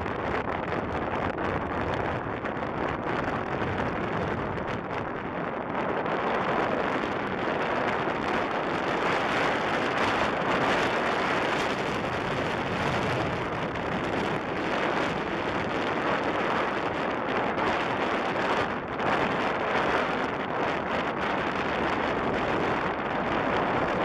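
Strong gusting wind blowing across the camera's microphone, a steady dense rushing noise that swells a little now and then.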